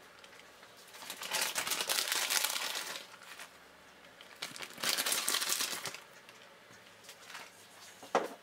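Crinkling rustle of grated cheese being handled and sprinkled by hand over a pizza, in two stretches of about two seconds each, with a short sharp rustle near the end.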